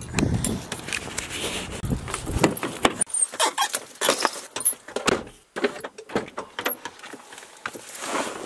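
Handling noises from loading a backpack into a car and getting in: rustling, clicks and knocks, with keys jangling. Low rumbling thumps in the first few seconds, then a quick run of sharp clicks.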